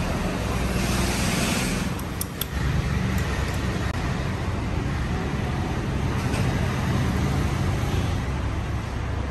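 Steady low rumble of passing motor traffic, with a few light metal clicks a little over two seconds in as the brake pads are handled in a scooter's disc brake caliper.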